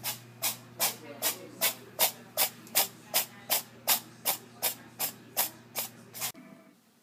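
A cat licking its fur, a regular rasping stroke about two and a half times a second, some seventeen strokes in all, stopping short a little past six seconds in. A steady low hum runs under it and ends at the same moment.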